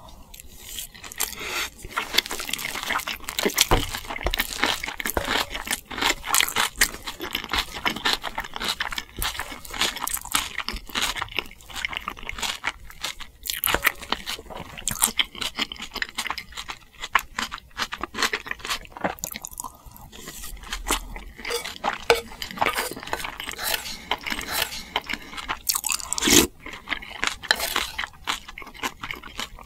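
A person chewing crunchy food close to the microphone, a steady run of crisp crunches and mouth sounds, with a louder knock about 26 seconds in.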